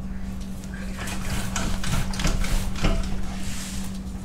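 Scattered knocks and scrapes of metal parts being handled and pried under a car, mostly between about one and three seconds in, over a steady low hum.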